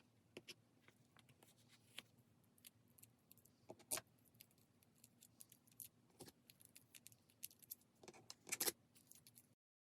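Faint, scattered light clicks and taps of stationery being handled on a desk, with a louder knock about four seconds in and a short cluster of louder taps near the end; the sound then cuts off abruptly.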